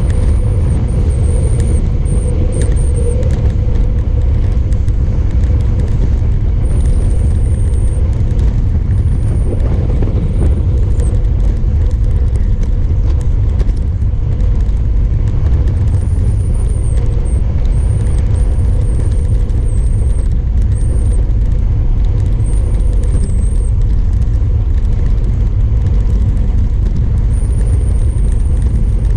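Wind rushing over a bike-mounted GoPro's microphone during a fast road-bike descent: a loud, steady low rumble. A faint high whistle comes and goes over it.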